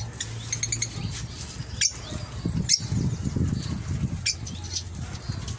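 African lovebirds chirping in short high calls, with wings fluttering and a rustle of movement. Two sharp clicks come a little under a second apart, about two seconds in.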